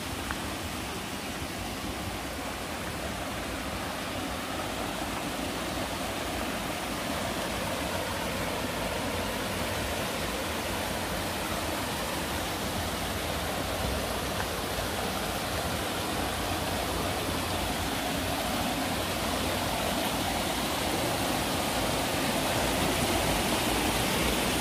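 Fast-flowing rocky mountain stream rushing over boulders, a steady rush that grows gradually louder.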